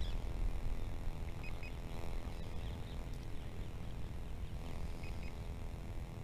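Outdoor field background with low wind rumble on the microphone and a faint, steady hum from the distant quadcopter's motors. A couple of faint bird chirps come about a second and a half in and again about five seconds in.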